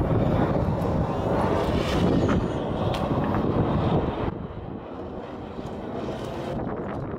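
Wind rumbling on the camera microphone, louder for the first four seconds and then dropping to a lower rush.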